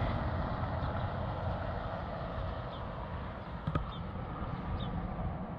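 Low rumble of a passing road vehicle, fading steadily as it moves away, with a single sharp click about three and a half seconds in.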